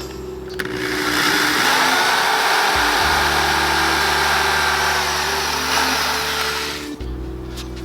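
Electric drill running steadily, boring small pilot holes for mounting screws; it starts under a second in and stops suddenly about seven seconds in.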